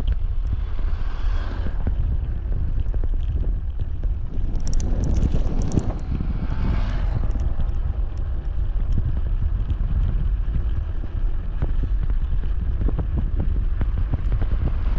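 Wind rumbling on the microphone of a moving bicycle, with road noise swelling louder about five to seven seconds in.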